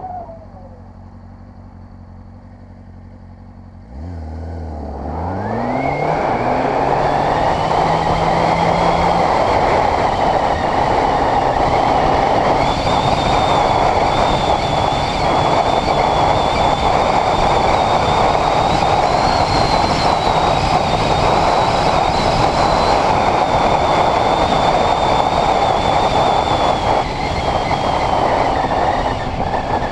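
Honda CBR600RR inline-four motorcycle engine idling quietly for about four seconds, then revving and rising in pitch as the bike pulls away and accelerates. It then settles into a loud, steady rush of wind and road noise over the engine at riding speed.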